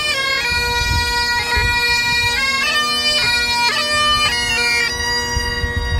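Great Highland bagpipes played by a few marching pipers: a melody of held notes stepping up and down over the pipes' steady drone.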